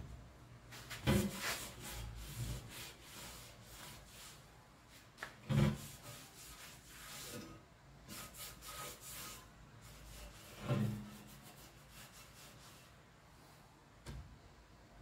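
Sponge pad scrubbing a wet, rusty steel skid plate, in runs of rough rubbing strokes, washing off rust loosened by a vinegar soak. Three dull thumps stand out, about a second in, in the middle and near the end.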